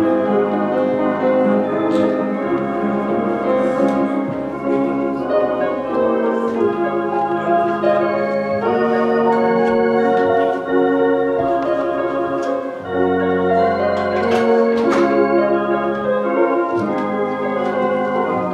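Church organ playing sustained chords over held deep bass notes, the harmony changing every second or two.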